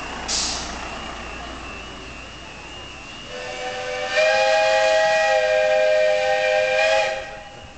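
Miniature steam locomotive's steam whistle sounding one long blast of about four seconds, a chord of several notes that swells, holds, then cuts off. A brief hiss of steam comes near the start.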